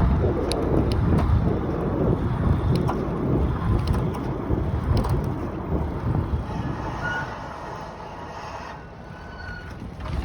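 Lectric Xpedition e-bike riding at speed, heard muffled from a pocket: a dense low rumble of the motor mixed with wind and road noise, which the owner finds much louder than it should be. The rumble fades over the last few seconds.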